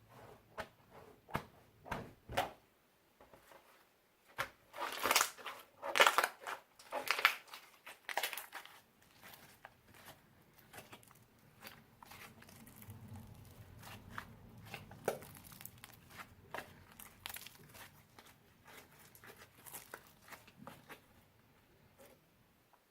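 Slime with magic clay worked into it, squished and stretched by hand, giving irregular crackling pops and squelches. The loudest run of crackles comes about five to eight seconds in.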